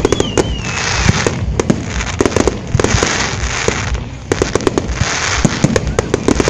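Fireworks display: a rapid series of sharp bangs from bursting shells, with long stretches of hissing crackle between them and a wavering, slightly falling whistle in the first second.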